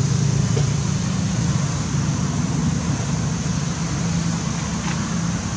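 A steady low motor hum over a constant noisy background.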